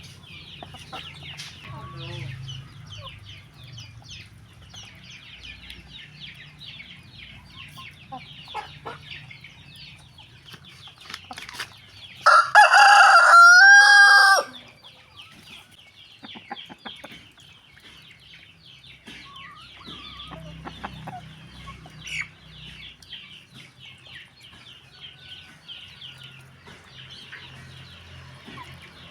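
A flock of chickens clucking steadily, with a rooster crowing once, loudly, about twelve seconds in and lasting about two seconds.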